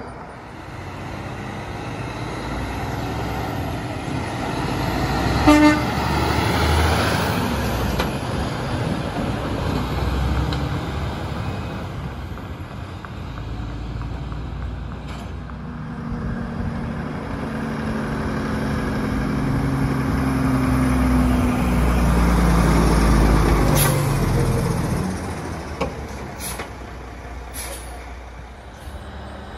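Heavy diesel trucks passing one after another, each engine swelling as it nears and fading as it goes by. A short, loud toot comes about five and a half seconds in.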